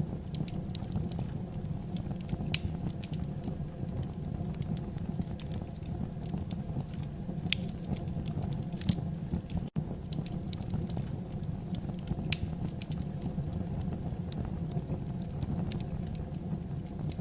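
Wood fire burning in a fireplace: a steady low rumble of flames with scattered sharp crackles and pops. The sound cuts out for an instant about ten seconds in.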